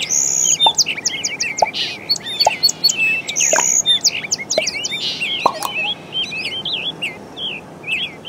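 Many small birds chirping and calling at once: a dense chorus of quick, high, overlapping chirps and trills over a steady background hiss.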